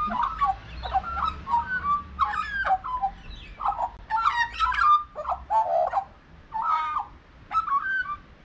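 Australian magpie singing a warbling song: a string of short phrases of varied fluting and chortling notes, with brief pauses between them.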